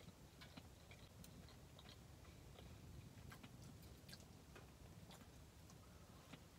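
Near silence: faint low room tone with scattered faint ticks and clicks.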